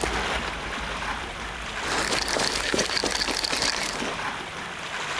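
Sea waves washing and splashing over shoreline rocks: a steady rushing wash that swells a little about two seconds in.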